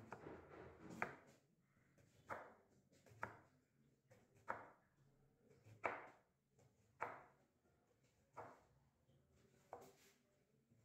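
Kitchen knife slicing a vegetable on a plastic cutting board, the blade knocking on the board with each slow slice, eight strokes a little over a second apart.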